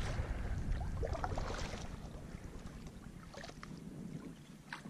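Kayak paddle dipping and dripping water in small splashes, with wind noise on the microphone that dies down about two seconds in.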